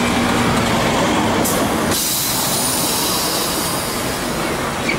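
Lisbon Remodelado tram standing at a stop, with a steady rumbling noise of the tram and street and a brief hiss about a second and a half in.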